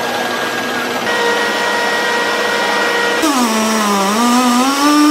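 Chainsaw engine running at high, steady revs. About three seconds in, its pitch dips and then climbs back up.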